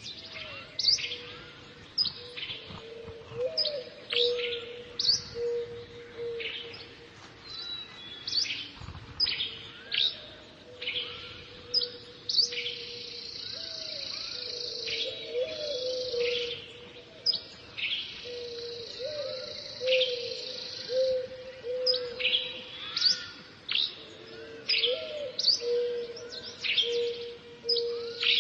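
Dawn chorus of several birds: many short, sharp high chirps over a repeated low cooing phrase, with a steady high buzzing note coming in for a few seconds at a time.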